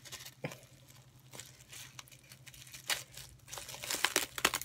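Packaging crinkling and tearing as a small figure is worked out of tight wrapping: scattered crackles, busier near the end.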